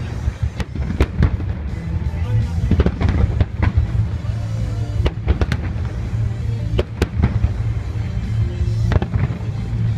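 Fireworks shells bursting in irregular succession, about a dozen sharp bangs with crackle, over a low rumble, with music playing along.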